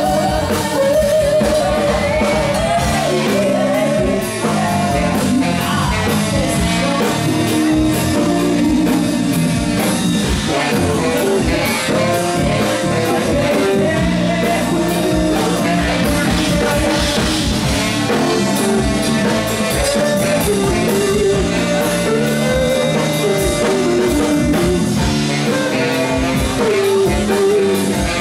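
Live band playing a funk song: a woman sings lead over electric bass, drum kit, percussion, keyboards and saxophone.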